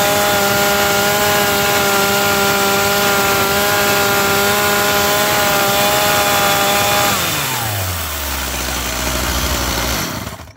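Mountfield MS38 two-stroke chainsaw engine running steadily, then winding down in pitch about seven seconds in as it stops. A low rumble carries on for a couple of seconds before the sound cuts off.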